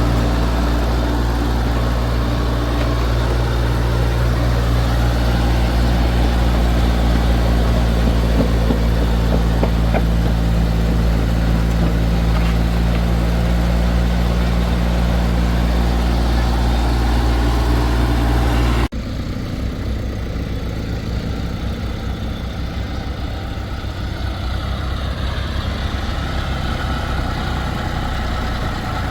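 Diesel engines of a backhoe loader and a tractor running steadily at work. About two-thirds of the way in the sound drops suddenly to a quieter, rougher engine sound.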